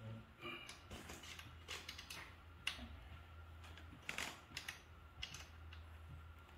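Faint, scattered clicks, taps and short rustles of hands fitting parts onto an electric bike's handlebar stem during assembly.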